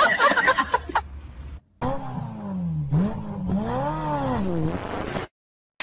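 A cat's long, low yowl of about three seconds. Its pitch dips and rises in a wavering arch, then it cuts off suddenly. Before it, about a second of clicks and chirpy sounds.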